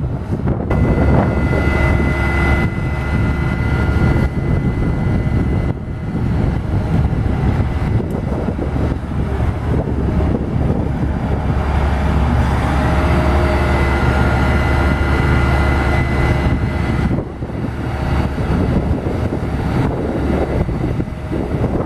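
Fire truck's snorkel aerial at work: the truck's engine running steadily with a low rumble while the hydraulic boom swings, and a steady whine comes in twice for a few seconds each. Wind rumbles on the microphone.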